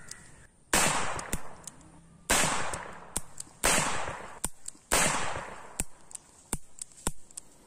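Four shots from a Pakistan-made .32 bore revolver, about a second and a half apart, each with a heavy report that fades away. Shorter, fainter sharp cracks fall between the shots and continue briefly after the last one.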